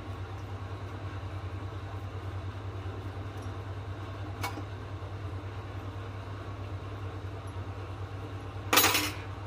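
A steady low hum, with a faint click about halfway through and a short, loud scrape near the end.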